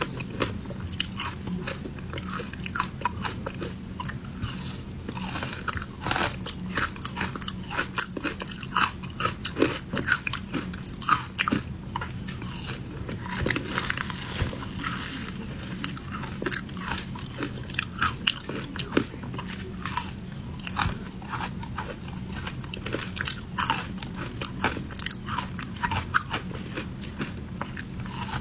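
A person biting and chewing frozen ice coated in matcha powder: dense, irregular crunching and crackling, close up, over a steady low hum.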